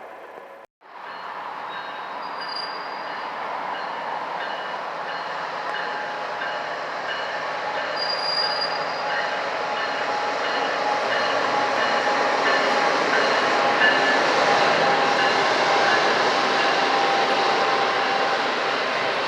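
A train rolling past on the rails, the rumble of its wheels growing steadily louder, with thin high wheel squeal running through it.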